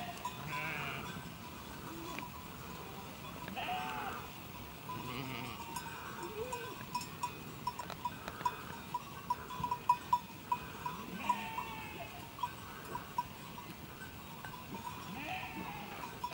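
A flock of Heidschnucken moorland sheep and goats, with several separate bleats spread through. A small bell clinks in quick strokes through the middle stretch.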